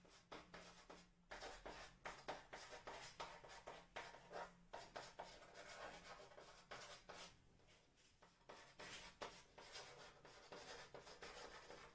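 Chalk writing on a blackboard: faint quick scratches and taps of short strokes as characters are written, with a brief pause about two-thirds through.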